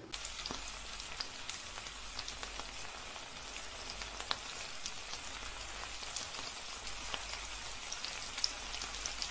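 Steady patter of falling water, with scattered light ticks.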